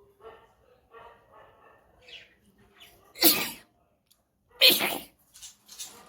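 A woman blowing forcefully through her nose, two short, loud nasal blasts about a second and a half apart, after softer pitched sounds in the first two seconds.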